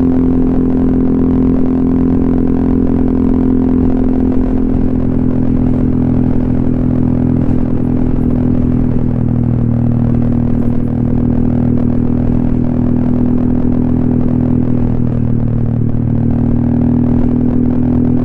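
Honda ADV 150 scooter's single-cylinder engine through an aftermarket SC Project silencer and Kawahara header, running steadily while riding, with small shifts in pitch.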